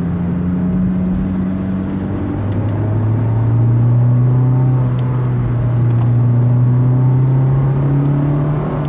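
Honda Fit Hybrid's four-cylinder engine, breathing through a Kakimoto aftermarket muffler, pulling up a hill. The engine note drops to a lower pitch about two seconds in, as on an upshift, then climbs slowly and grows louder.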